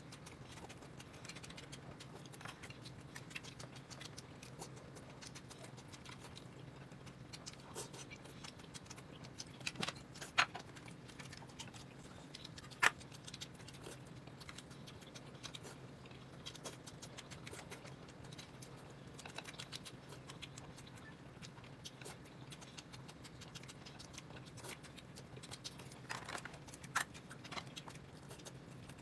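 Quiet eating: small scattered clicks and taps of utensils against a bowl, with a few sharper clicks, over a steady low hum.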